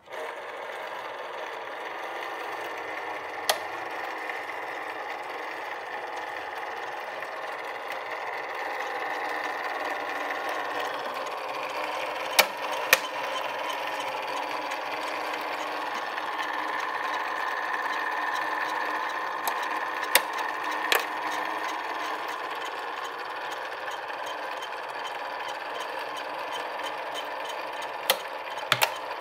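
Remco Barracuda 578 toy submarine's battery-powered electric motor and gears whirring steadily as it runs on low batteries, with a few sharp clicks from the mechanism along the way.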